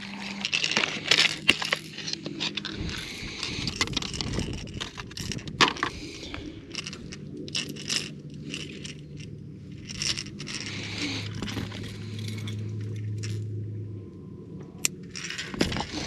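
Fishing tackle being handled: a lure's metal hooks clink, jingle and scrape in a run of sharp clicks. A low steady hum runs underneath and grows stronger from about ten to fourteen seconds in.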